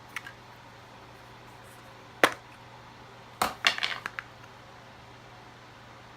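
Sharp taps and clinks of small hard objects: a faint one at the start, a single loud one about two seconds in, then a quick run of several around three and a half to four seconds.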